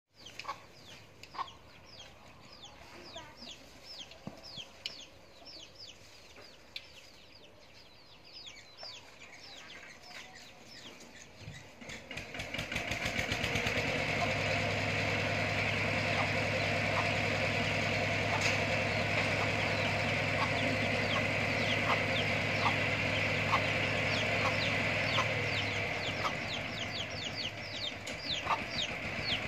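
Birds chirping in quick, short falling notes. About twelve seconds in a steady engine hum with a low drone sets in, louder than the chirps, and fades out near the end.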